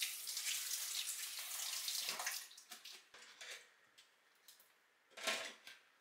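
Kitchen tap running as tomatoes are rinsed in a strainer under it; the water stops a little over two seconds in. Then come a few light clicks and one louder knock about five seconds in as produce is handled and set down on the counter.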